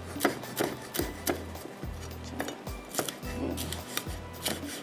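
Large kitchen knife chopping green chilies on a wooden cutting board: sharp blade knocks against the wood in an uneven rhythm, about two or three a second.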